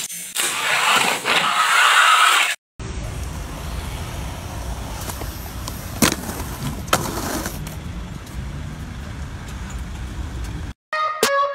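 Steady low street traffic noise with a skateboard rolling on paving stones and two sharp clacks of the board about six and seven seconds in. A few seconds of hissing scrape open it, and music begins near the end.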